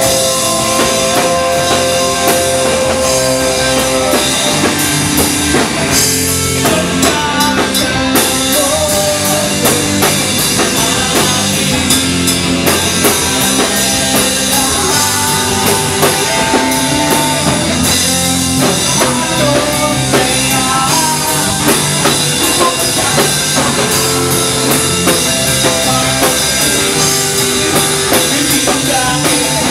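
Rock band playing live: a drum kit, electric guitars and electric bass, with a singer's vocals into a microphone over the top.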